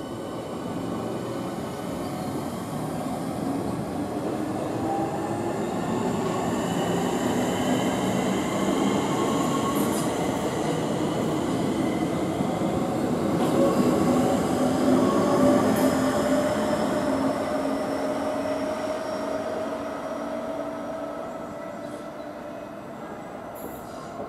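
Electric multiple-unit train pulling away and accelerating, its traction motors whining in several tones that rise in pitch over a rumble of running noise. The sound builds to its loudest a little past halfway, then fades.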